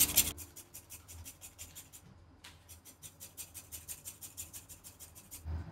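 Lemon rind being rubbed on a metal grater for zest: a faint, quick, even train of scraping strokes, several a second, with a short pause about two seconds in.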